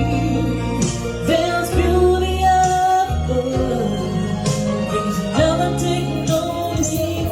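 Music: a woman singing with gliding, held notes over a backing track with a sustained bass line.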